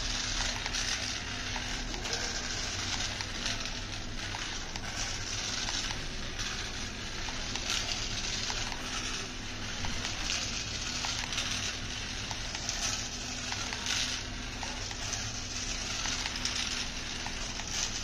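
Small plastic remote-control toy cars driving on rough concrete: a steady gritty hiss of the wheels rolling over the surface, with scattered faint ticks.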